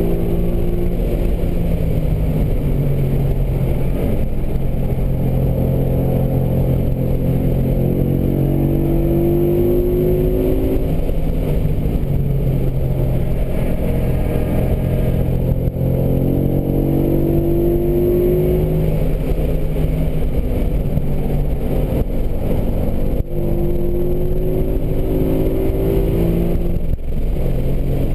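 2012 Ford Mustang GT's 5.0-litre V8 running hard at track speed, heard from inside the cabin, over steady road and wind noise. The engine note climbs in pitch in several long sweeps under acceleration, with brief dips between them.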